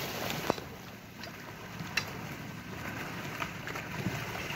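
Steady outdoor hiss of wind and sea, with a few sharp knocks: a loud one about half a second in, another at about two seconds, and fainter ones near the end.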